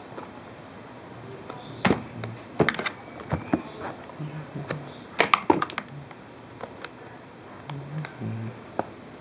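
Irregular clicks and taps of a puzzle-cube box and its packaging being handled and opened, busiest around two seconds in and again about five seconds in.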